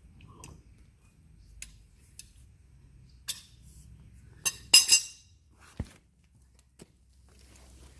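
Steel hand tools clinking: a socket and breaker bar handled at the wheel hub, a few sharp metallic knocks with a ringing cluster about five seconds in.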